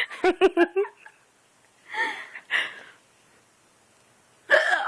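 A person's voice in short bursts: a quick run of about six short pitched syllables, then two short vocal sounds about two seconds in, and another near the end.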